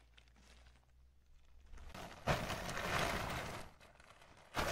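Nylon tent fabric rustling and flapping as the tent is unrolled and shaken out over grass. It comes twice: a longer spell starting about two seconds in, and again near the end.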